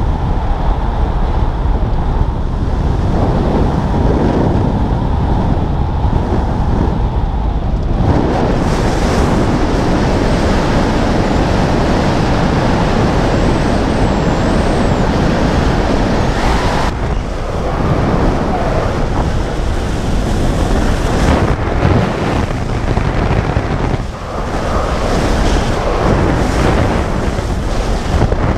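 Loud wind rushing and buffeting over the camera's microphone during parachute canopy flight. It grows brighter and fuller about eight seconds in, and eases briefly twice later on.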